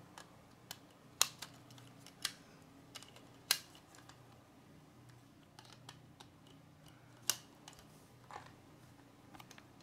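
Lego plastic parts clicking and tapping as wheels are pushed onto a small Lego monster truck: irregular sharp clicks, roughly one every second or so.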